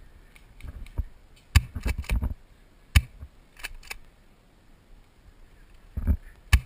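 Scattered sharp clicks and knocks of movement: footsteps in grass and gear shifting against the body-worn camera as the player carries an airsoft shotgun. The loudest knocks come about a second and a half in and at three seconds, with a few more near the end.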